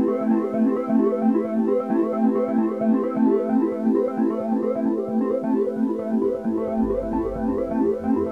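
Background music: electronic keyboard notes in a quick repeating pattern over held chords, with a low bass beat coming in near the end.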